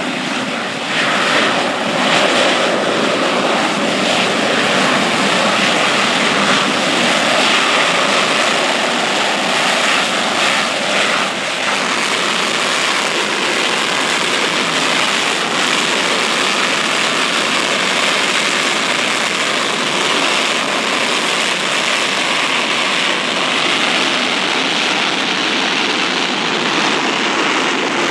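GE J79 turbojet engine running steadily at ground idle, a loud, even rushing roar heard from about 50 yards away.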